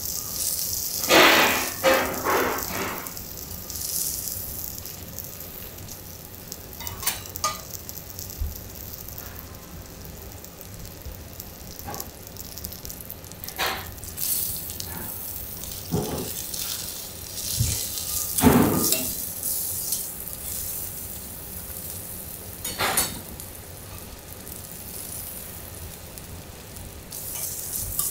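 Wagyu chateaubriand sizzling on a hot teppanyaki iron griddle, a steady frying hiss, with several sharp knocks and scrapes of metal cooking utensils on the plate.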